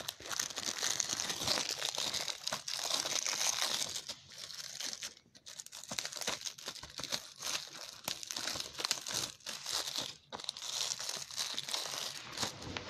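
Plastic shrink wrap on a Blu-ray case crinkling as it is pulled at and torn open by hand, a dense crackling that pauses briefly about four seconds in and again about ten seconds in.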